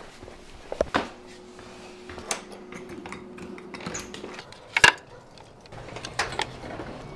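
Hard objects being handled: an irregular clatter of sharp knocks and clicks, the loudest about five seconds in.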